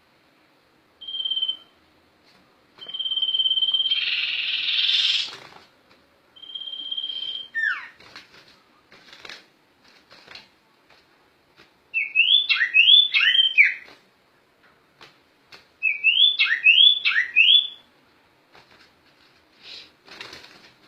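Sirtu (sirpu) songbird singing: a few clear, steady high whistles, one sliding sharply downward, then two quick runs of rapid up-and-down whistled notes.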